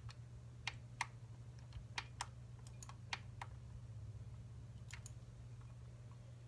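About ten light, irregular clicks of keys and buttons being pressed by hand, most of them in the first half, over a steady low electrical hum.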